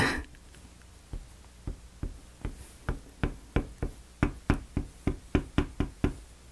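Nozzle of a squeeze bottle of glue tapping on a wooden kit board as glue dots are dabbed on: a string of about twenty light taps, starting about a second in and coming three to four a second.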